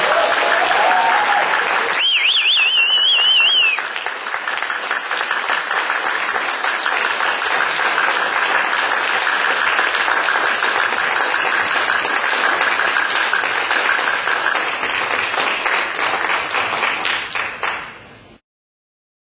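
Audience applauding and clapping at the end of a stage dance performance, with a high warbling whistle from the crowd about two seconds in that lasts under two seconds. The applause thins out and then cuts off shortly before the end.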